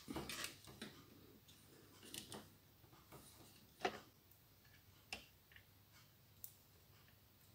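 Faint handling noise from soldering a wire onto a small circuit board: a few scattered light clicks and taps as the board and soldering iron are handled, the loudest about four seconds in, over a low steady hum.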